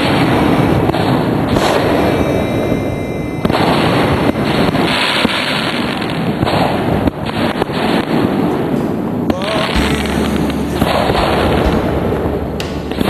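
Aerial fireworks going off in quick succession: repeated bangs and crackling from shell bursts overhead.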